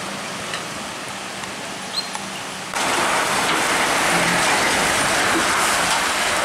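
Diesel container trucks on a wet road. First a steady engine hum from a turning tractor-trailer; then, about three seconds in, the sound jumps to a louder, even hiss of wet-road and rain noise as an Isuzu Giga tractor unit rolls past.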